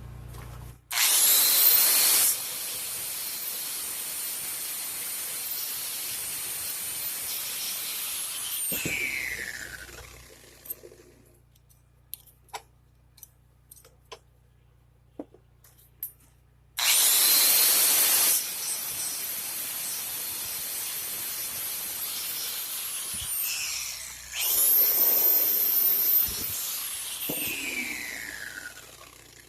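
Electric grinder run twice on the metal latch piece. Each run starts with a rising whine and a loud stretch, the motor runs on steadily, then winds down with a falling whine. The second run has another loud stretch just before it spins down.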